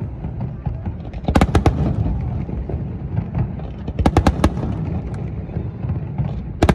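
Aerial firework shells bursting in quick clusters of sharp bangs, about a second and a half in, around four seconds in, and again near the end, over a continuous low rumble.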